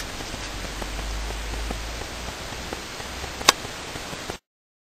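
Steady hiss of room tone with a low hum, a few faint ticks and one sharp click about three and a half seconds in. The sound cuts off abruptly near the end, leaving complete silence.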